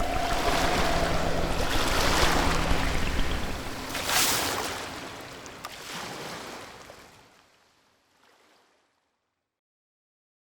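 Ocean waves sound effect: a hiss of surf that swells twice, about two and four seconds in, then fades away, leaving silence for the last three seconds.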